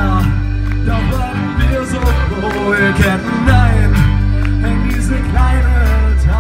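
A live rock band playing, with a lead singer over drums and electric guitars.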